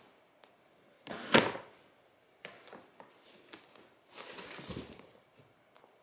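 A cat pushing its way into a cardboard box with a plastic window, knocking and scraping the box about: a loud bump about one and a half seconds in, a few light knocks, then a longer rustling scrape as it squeezes inside.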